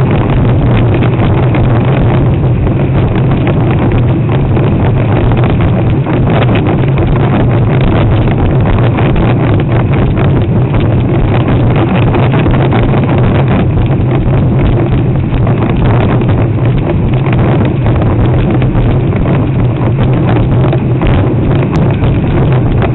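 Wind buffeting the microphone of a camera mounted on a sailing windsurf board: a loud, steady rumbling rush with no letup.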